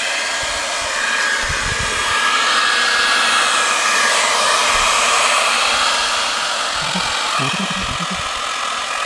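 Handheld hair dryer running steadily, its nozzle blowing hot air against the side of a plastic stock tank.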